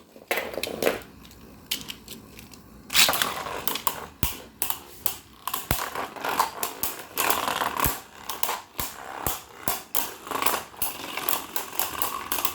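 Two Beyblade Burst spinning tops, Bloody Longinus and Revive Phoenix, battling in a stadium. From about three seconds in they clack against each other and the stadium walls in rapid, irregular clicks.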